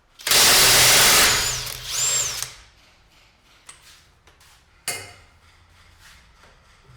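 Impact wrench run on the rear hub nut to undo it: one loud burst of about two seconds, then a short second burst about five seconds in.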